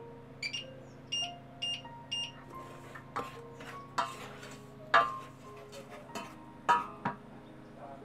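Wooden spoon stirring dry semolina in a stainless steel saucepan: a run of knocks and scrapes against the pan, the first four ringing like light taps on the metal, about one every half second.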